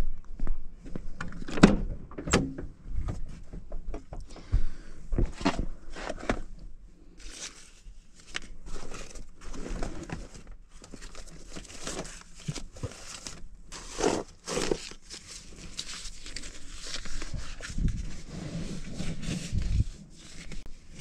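Footsteps on pavement, then irregular knocks, scrapes and rustling as items are handled and moved around inside a van's cab.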